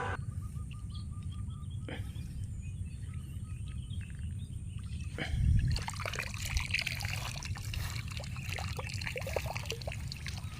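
Water trickling and splashing, getting busier from about halfway through, over a steady low rumble, with faint bird calls.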